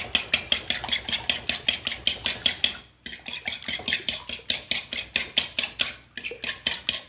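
A metal fork beating milk and egg in a ceramic bowl, clicking quickly and evenly against the bowl at about five strokes a second, with a short break about three seconds in.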